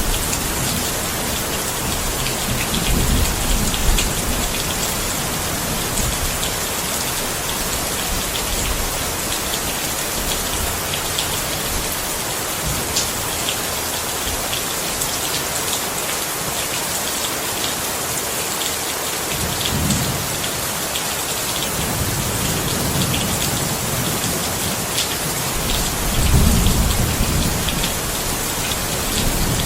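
Steady rain falling on surfaces, a dense hiss with many sharp drop ticks. Low rumbles of thunder swell up three times: a few seconds in, about two-thirds through, and near the end.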